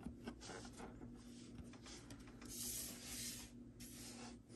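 Faint handling of a trading card and a clear plastic blister tray: soft clicks and a brief scraping rustle about two and a half seconds in, lasting about a second.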